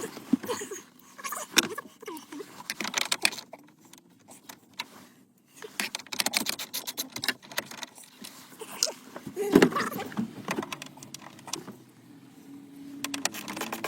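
Irregular clicking, rattling and knocking of hands and metal radio-removal keys working at a dash-mounted car stereo while trying to pull it out, with one louder knock about ten seconds in.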